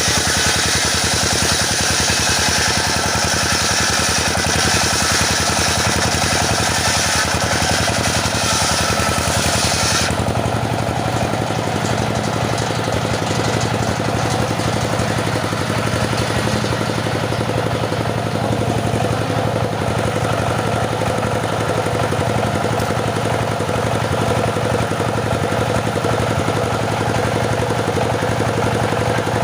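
Stihl petrol saw cutting teak, the engine under load beneath a loud high rasp from the cut. About ten seconds in the cutting noise stops abruptly and the engine keeps running steadily, the blade out of the wood.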